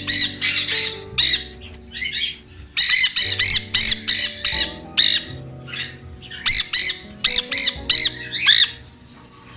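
Sun conures screeching: shrill, high-pitched calls repeated in quick clusters of short squawks. They are very loud.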